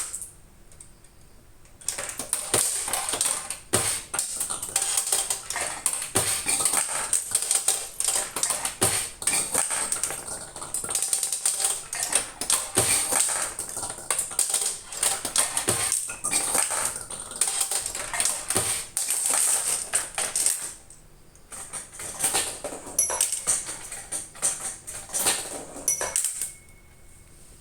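A freshly repaired machine test-running with fast, dense mechanical clicking and rattling. It starts about two seconds in, stops briefly after about twenty seconds, runs again, and stops near the end.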